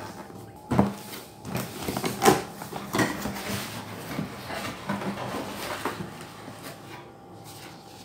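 Cardboard blender box being handled and opened: a few knocks and thumps about a second apart, then cardboard and paper rustling that dies down near the end.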